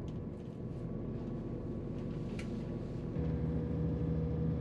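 Underfloor diesel engine of a Class 168 diesel multiple unit, heard from inside the carriage as the train pulls away from a station. About three seconds in, the engine note steps up into a louder, steady hum as power is applied for the climb.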